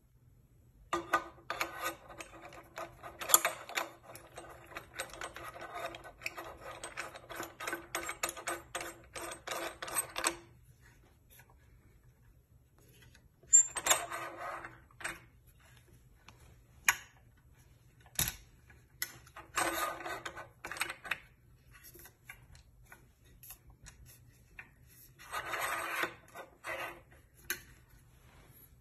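Rapid metal clicking and rattling as the tightening handle of a tripod leveling base is turned on its threaded stud under the bowl: a long run of clicks, then three shorter bursts.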